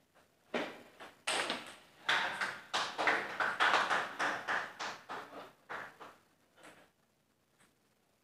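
Sharp clicks and knocks of a table tennis ball, struck by bats and bouncing on the table in a rally, then bouncing loose after the point. The knocks come thick and fast for a few seconds, then die away about seven seconds in.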